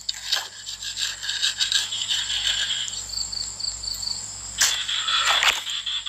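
A metal tool scraping and knocking in the dry earth of a bank as a nest hole is dug open, louder for a moment about five seconds in. Behind it runs a steady high insect drone, with a short quick run of high chirps about three seconds in.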